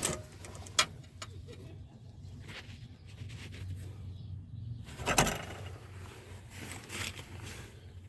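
A few sharp clicks and light rattles from plastic parts being handled: the EVAP vent valve solenoid and its jumper wiring harness. The loudest click comes a little past the middle. A low steady hum runs underneath.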